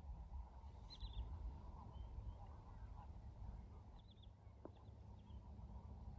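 Faint waterfowl calling, goose-like honks, with a few short high chirps from small birds about one and four seconds in, over a low steady rumble.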